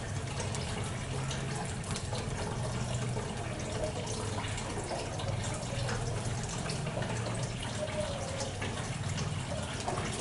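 Coconut-milk batter cooking in a covered aluminium cake mould: a soft, steady sizzling and bubbling, with a low hum that comes and goes.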